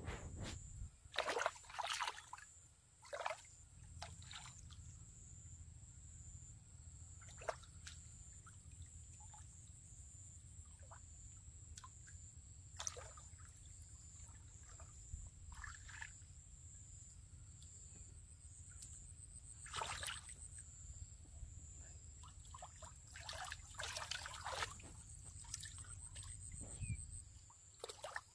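Hands groping and stirring in shallow muddy water: scattered small splashes and trickles, coming and going, with a cluster of them near the start and another late on.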